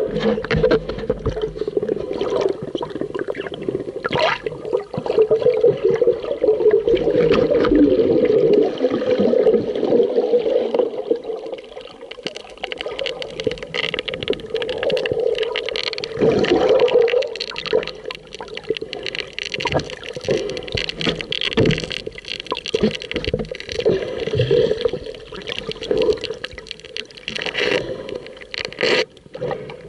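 Muffled rushing and gurgling of water around a camera moving underwater in the sea, with many irregular short clicks and knocks.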